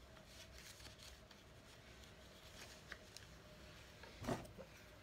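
Faint rustling, scratching and light clicks of a small cardboard box and its packaging being handled and worked open, over a faint steady hum, with one short louder sound a little after four seconds.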